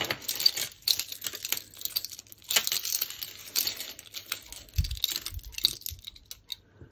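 Costume jewellery clinking and rattling as hands sort through a pile of metal chains and beaded necklaces, a run of irregular small clicks and jingles. A soft low thump comes about five seconds in.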